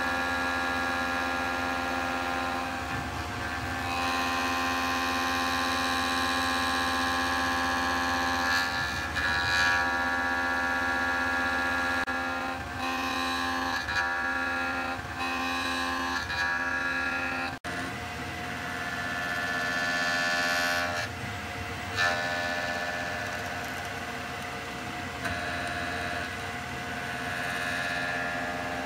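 Small machine tool running: a steady whine of several held tones that shift pitch every few seconds, with a brief cut about 17 seconds in.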